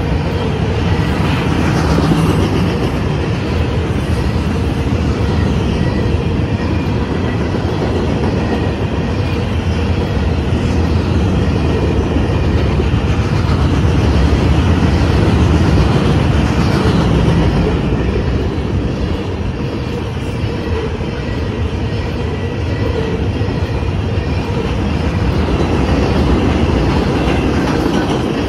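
A freight train of steel-hauling coil cars and flatcars passing close by. Its wheels and cars make a steady rumble, with repeated clickety-clack as the wheels cross rail joints.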